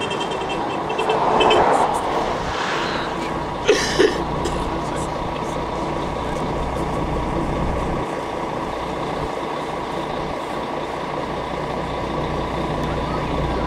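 Steady engine and road noise of a tour bus, heard from inside the cabin, with two short sharp knocks about four seconds in.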